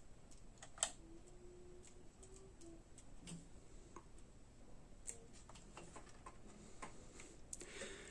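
Faint room tone with scattered small clicks and handling knocks, one sharper click about a second in and a short rustle near the end.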